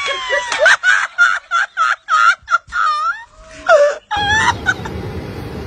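A person giving a rapid series of short, high-pitched shrieks, about three or four a second. About four seconds in they cut off and a steady low rumble of a car's cabin takes over.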